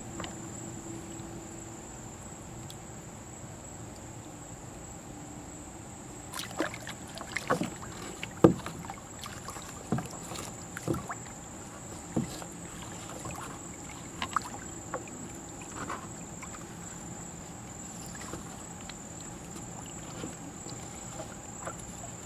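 Irregular knocks and clunks around a fishing kayak on the water, bunched between about six and sixteen seconds in, over a steady high-pitched insect trill.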